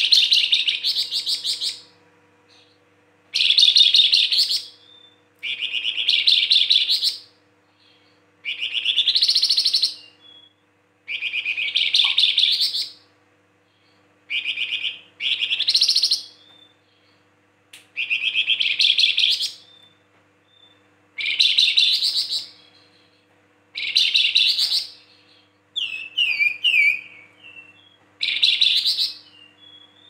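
Caged flamboyan songbird singing in full voice (gacor): loud phrases of rapid chattering trills, each one to two seconds long, repeated every few seconds. Near the end the phrases give way to a run of short falling whistles.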